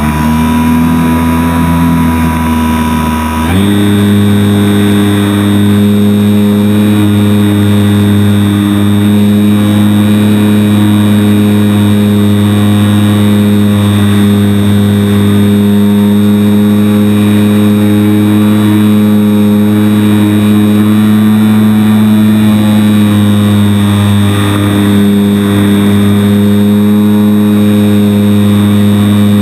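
Electric motor and propeller of a HobbyZone Super Cub RC plane, heard from a camera on the plane in flight: a steady whine whose pitch steps down slightly about three and a half seconds in, then holds.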